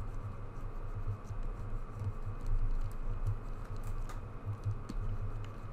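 Faint, irregular clicks and taps from computer input devices as sculpting strokes are drawn, over a low steady hum.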